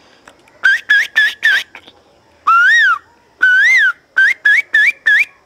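Finger whistle imitating the call of a koel: a run of four short rising notes, then two longer notes that swoop up and back down, then another quick run of four short notes.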